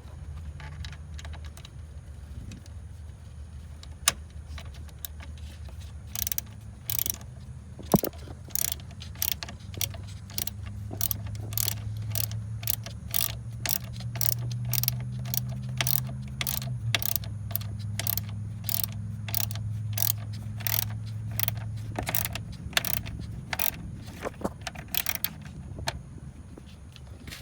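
Ratchet socket wrench with an 8 mm socket driving in a screw: short ratcheting clicks in repeated strokes, about two a second, starting a few seconds in and stopping near the end, over a steady low hum.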